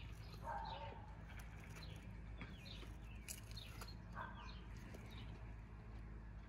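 Birds chirping repeatedly, with a couple of louder calls about half a second in and at about four seconds. Under them come scattered faint clicks of a Norwich terrier's teeth gnawing a raw pork shoulder bone.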